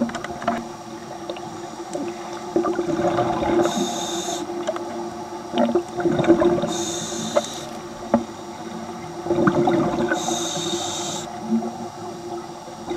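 Scuba diver breathing through a regulator underwater: a hissing inhale three times, roughly every three seconds, alternating with the bubbling of exhaled air. A steady low hum runs underneath.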